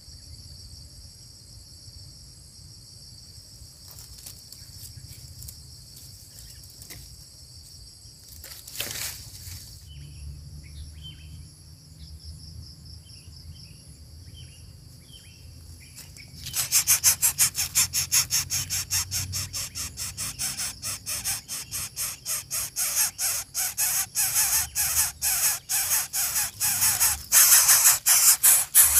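Insects trilling steadily, with a few short bird chirps. About 16 seconds in, a loud rhythmic scraping or rasping starts, in quick repeated strokes, and drowns them out.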